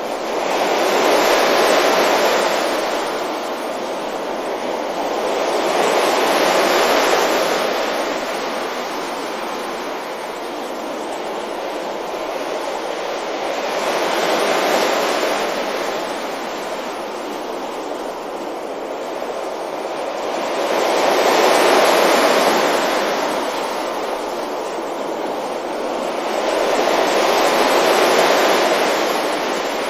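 Ocean waves breaking gently on a beach: a steady wash of surf that swells up and dies back five times, every six or seven seconds.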